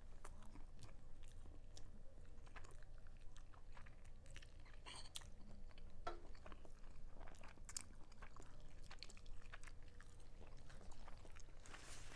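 Close-up chewing of a sticky, honey-Dijon-glazed chicken drumstick: faint, wet mouth clicks and smacks, with a few louder ones now and then.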